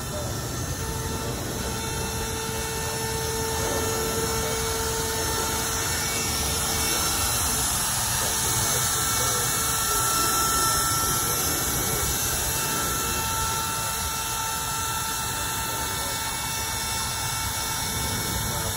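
Compact wood router running steadily at high speed, its bit cutting freehand into a wooden sign board.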